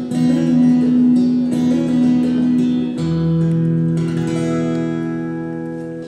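Instrumental music, with plucked-string chords over sustained notes. The chord changes about halfway through, and the music dies away near the end.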